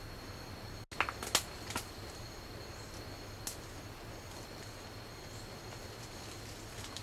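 Insects chirring steadily on one high note in the forest. A few sharp clicks and snaps come about a second in, and one more near the middle.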